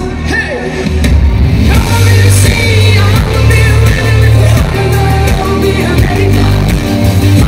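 Loud live pop music played through a concert PA system, with a heavy, sustained bass line.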